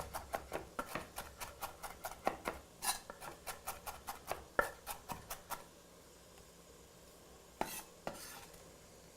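Kitchen knife chopping on a cutting board in quick, even strokes, about four or five a second, stopping about halfway through; a short scrape follows near the end.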